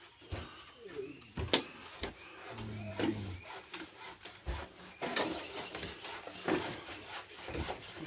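Scattered knocks, taps and clacks of people working and moving about inside a bamboo-walled house, with one sharper knock about a second and a half in.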